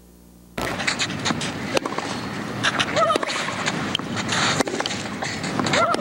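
Faint hum of a blank videotape, then about half a second in, the sound of a televised tennis match cuts in abruptly: the steady noise of a large stadium crowd at a clay court, with many sharp clicks and a couple of brief calls.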